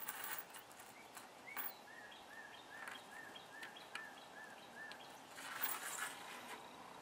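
Small metal snap-fastener parts clicking lightly as they are picked up and set down on a wooden tabletop, with a longer stretch of hand-and-sleeve rustling about five and a half seconds in. A bird calls in the background with a run of short, evenly spaced chirps, about three a second, lasting about three seconds.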